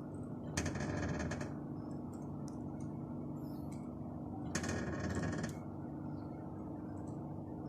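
Kia Sportage making an unexplained mechanical noise with nobody touching it: a rapid ratcheting clatter lasting about a second, which comes twice, about four seconds apart, over the steady hum of the engine running.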